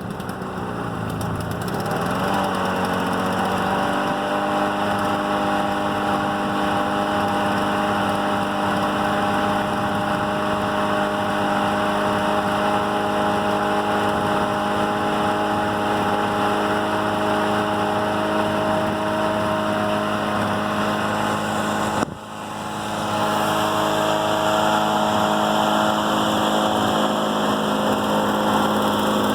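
Toro 16585's Suzuki two-stroke engine just after a cold start, its speed climbing for the first couple of seconds and then settling into a steady idle. About three-quarters of the way through, the sound breaks off for an instant and comes back at the same steady idle.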